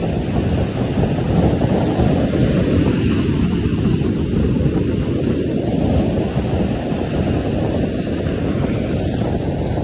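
Ocean surf breaking and washing up a sandy beach, mixed with heavy wind noise on the phone's microphone: a continuous low rush.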